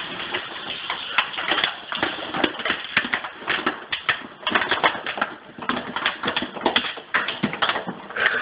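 Crinkly plastic bag crackling and rustling as a dog roots around inside it with its head: a continuous run of irregular sharp crackles.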